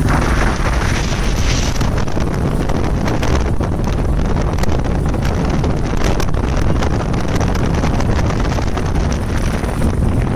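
Wind buffeting the microphone of a motorcycle at riding speed, over the steady low running of motorcycle engines.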